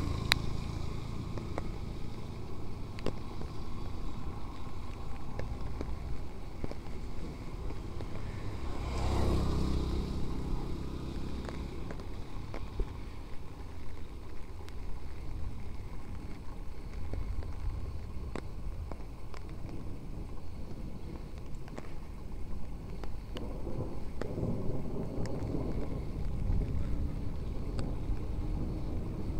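Street ambience in the rain: a car passes on the wet road about nine seconds in, over a steady low rumble of traffic.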